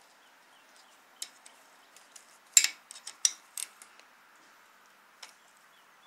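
Scattered metal clicks and clinks from a wrench and timing chain against the camshaft sprockets of a Toyota 2AZ-FE engine being timed. The loudest is a sharp metallic clack about two and a half seconds in, followed by a few quicker clinks.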